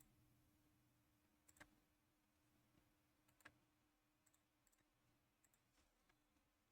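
Near silence with a faint steady hum and a scattering of faint, sharp clicks, the clearest two about one and a half and three and a half seconds in, with smaller ones near the end.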